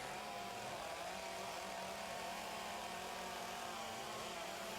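Several chainsaws running at once as the carvers cut, their engine pitches wavering and drifting up and down against each other.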